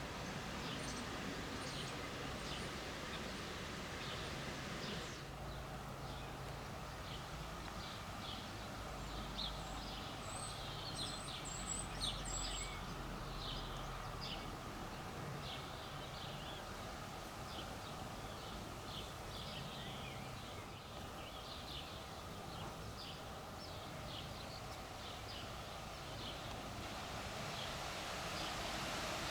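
Small birds singing, with many short, repeated chirps, over a steady low background hum.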